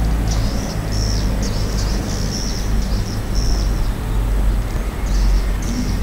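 Edible-nest swiftlets giving short high chirps in quick repeated runs, over a steady low rumble.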